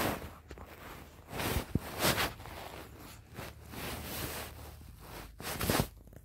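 Close rustling and brushing against the microphone as a long-haired chihuahua's fur rubs the phone and moves on the bedding, in irregular bursts, loudest about a second and a half in, at about two seconds and near the end.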